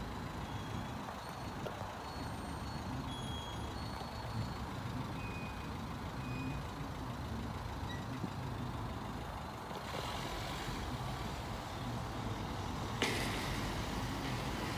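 Steady low rumble of motor traffic, with a few short faint high tones in the first half. A sudden rush of hiss comes in about thirteen seconds in.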